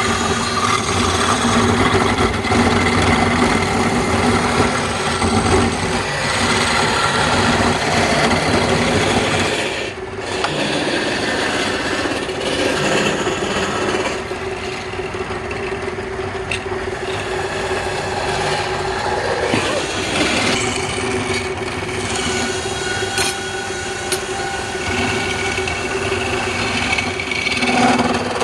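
Wood lathe running with a steady motor hum while a turning tool scrapes and cuts the spinning wood, with a brief break in the cutting about ten seconds in.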